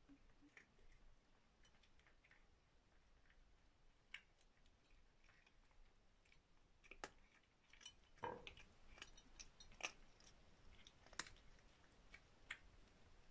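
Two cats chewing fish and dry food from bowls: faint, scattered clicks and crunches of eating, sparse at first and busier in the second half.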